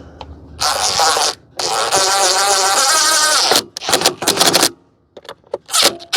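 Cordless power driver run in bursts to tighten fasteners on a small engine: a short burst, then a longer run with a motor whine, followed by spells of rapid clicking.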